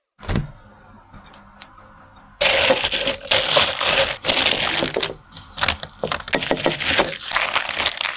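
A knock about a quarter of a second in, then from about two and a half seconds a plastic piping bag crinkling and rustling loudly as it is filled and handled, with many sharp crackles.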